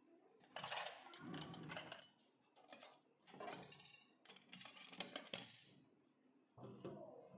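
Kitchenware clinking and clattering as it is handled and set down, in four or five separate bursts.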